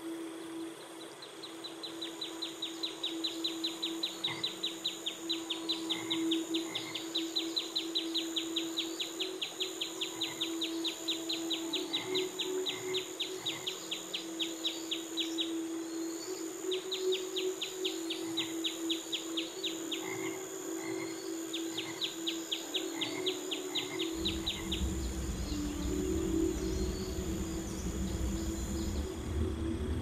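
Tropical forest night ambience: a rapid pulsed trill from a calling frog or insect repeats in three long runs, over a steady high insect drone and a low held hum. A deeper rumble comes in about two-thirds of the way through.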